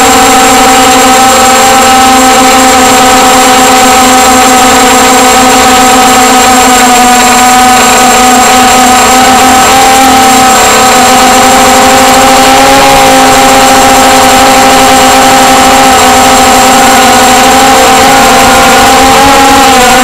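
Electric motors and propellers of a multicopter drone, heard from its onboard camera: a loud, steady multi-tone whine in flight. The pitch wavers and dips briefly near the end as the drone comes down low.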